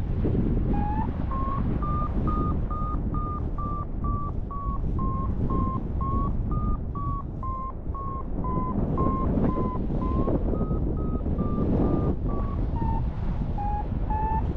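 Paragliding variometer beeping about twice a second, its pitch rising a little early on and falling lower near the end; the beeping is the instrument signalling that the glider is climbing in lift. Rushing wind on the microphone underneath.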